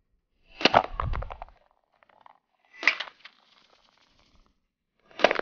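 Three short bursts of rapid sharp cracks and tinny clatter, about half a second in, about three seconds in and near the end: gas airsoft gun shots and BBs striking aluminium soda cans, knocking them off a concrete ledge. The first burst ends in a low thump.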